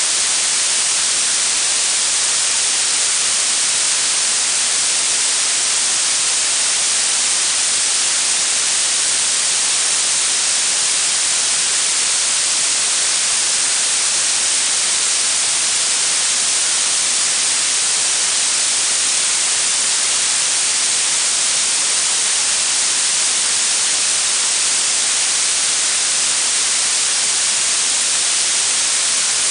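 Blue noise: a steady, even hiss weighted toward the high end, strongest in the treble and thin in the bass, with no change in level or character.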